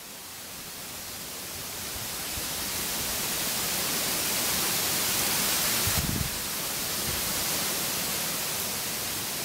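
A steady hiss of noise that grows louder over the first few seconds, with a brief low thump about six seconds in.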